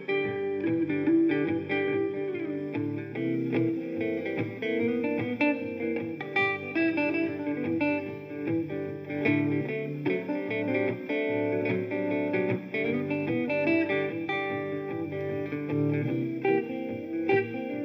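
Background music played on guitars, plucked and strummed, with a steady beat.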